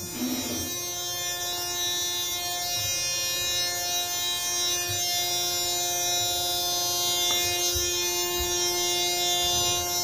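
Steady electrical hum inside a hydraulic elevator cab, several fixed pitches held unchanged, with a few faint low knocks, while the car waits to start.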